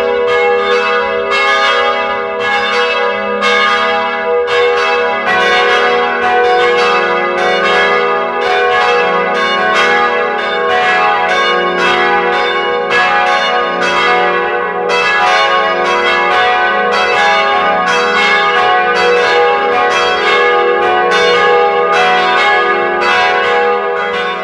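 Church bells ringing in a continuous sequence, roughly three strokes every two seconds, each note ringing on into the next; about four to five seconds in, the lower notes change as different bells come into the sequence.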